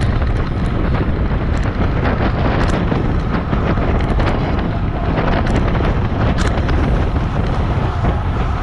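Steady wind rush buffeting a handlebar-mounted camera's microphone as a road bike rides at about 30 mph, with a few faint clicks.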